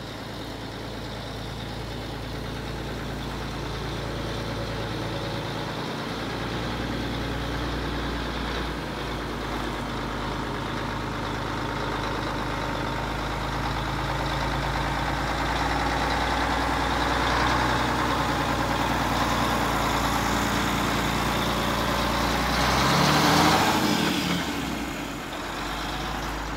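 Mack Cruiseliner cab-over semi tractor's diesel engine running, growing steadily louder as the truck approaches. Near the end the engine revs up with a rising pitch as it pulls away, then drops back.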